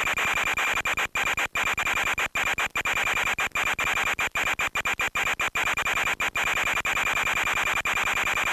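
Steady hiss of static with a constant high whine through it, cut by many brief sudden dropouts, typical of the audio channel of an analog FPV video link.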